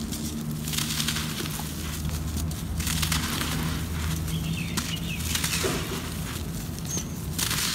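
Dry red dirt blocks crumbling in the hands, the powdery soil rustling and pouring down in several surges, over a low steady hum.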